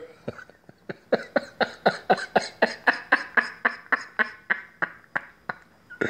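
A man's rapid staccato laugh: a run of short breathy 'heh' pulses, about four a second, fading toward the end.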